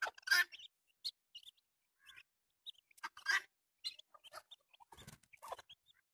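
Farmyard poultry foraging: scattered short peeps and calls from chicks and hens. Louder harsh calls come about a third of a second in and about three seconds in, and a brief low bump about five seconds in.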